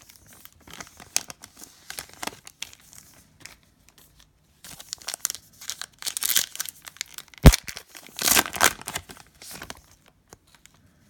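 A Panini Prizm basketball card pack wrapper being torn open and crinkled, in light scattered crackles at first and then louder bursts of tearing and crinkling. A single sharp knock sounds just past the middle.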